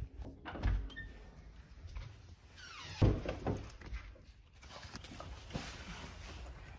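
Elderly dog moving about and settling, with a soft thump just under a second in and a louder cluster of thumps and rustling about three seconds in.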